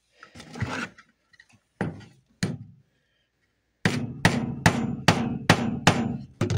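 A hammer taps a bent nail held in needle-nose pliers against a plywood board to straighten it. There are two taps, then from about four seconds in a quick, even run of about seven taps, roughly two or three a second, each with a short metallic ring.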